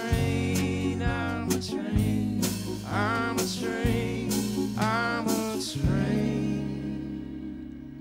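Live folk-rock band playing, with strummed acoustic guitar chords and sung vocal lines over them. About six seconds in the band hits one chord and lets it ring, fading away.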